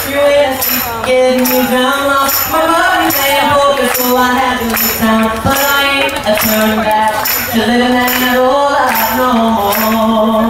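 Voices singing a country song with hand claps keeping a steady beat about twice a second. No amplified guitar is heard: the guitar's power has failed, and the singers carry on with the audience singing along.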